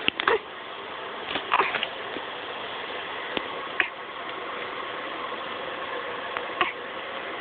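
Hiccups: several short, sudden hics at irregular spacing, a second or more apart, over a steady background hiss.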